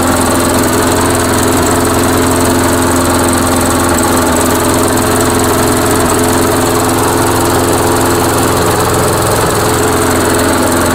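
Briggs & Stratton 550 Series 158cc single-cylinder lawn mower engine running steadily, warming up just after being started.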